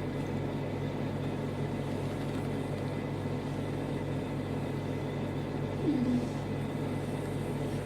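Quiet room tone: a steady low electrical hum under a faint even hiss, with a faint brief voice about six seconds in.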